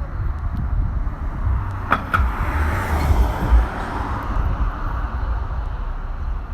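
Vehicle noise: a steady low rumble, with two sharp clicks about two seconds in and a swell of noise that rises and fades over the following two seconds.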